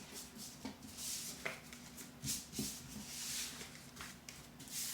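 Tarot cards being handled and shuffled: several soft papery rubs and slides with a few light taps.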